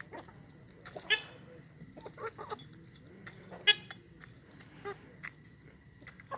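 Chickens calling: two loud, pitched squawks, about a second in and near the middle, with shorter, softer clucks between and after.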